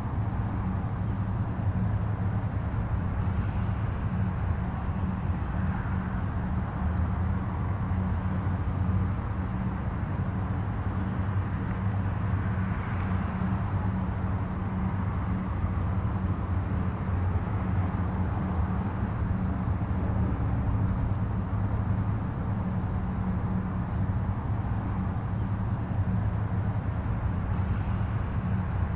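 Distant highway traffic: a steady low rumble of tyres and engines, with gentle swells as individual vehicles pass.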